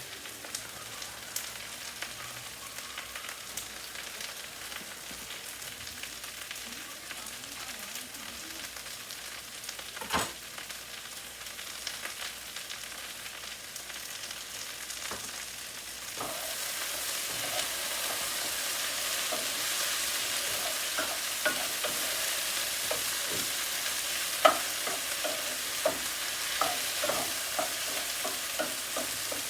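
Mushrooms and onions frying in butter in a pan, a steady sizzle that gets louder about halfway through. A single knock comes about a third of the way in, and a utensil clicks against the pan several times near the end.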